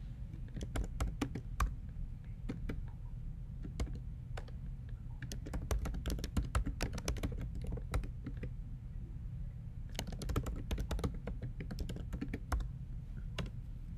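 Typing on a computer keyboard: irregular runs of quick key clicks with short pauses between them, over a low steady hum.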